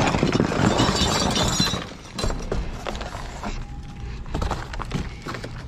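Shards of broken mirror glass clinking and crunching together as they are gathered up and dropped in: a dense crackle for about two seconds, then a few scattered clinks.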